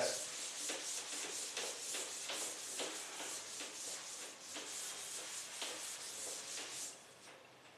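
Quick, scratchy rubbing strokes across a teaching board, fading out near the end.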